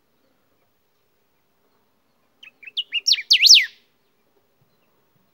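A caged songbird sings one short phrase of quick, sweeping notes that rise and fall, starting quietly about two and a half seconds in and getting louder to its last notes, just over a second long.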